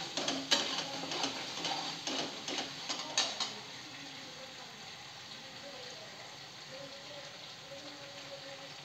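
Onion masala and chopped tomatoes frying in a metal kadhai. A perforated metal spatula scrapes and knocks against the pan for the first three seconds or so, then only a low, steady sizzle remains.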